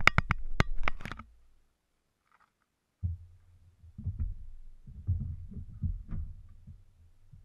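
A quick run of sharp clicks and knocks as the ATV-mounted action camera is handled, ending about a second in. After a short pause comes a muffled, irregular low rumble with soft thumps.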